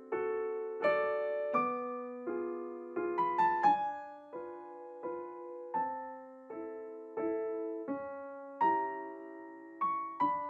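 Background piano music: slow single notes and chords, struck about once or twice a second, each ringing and fading.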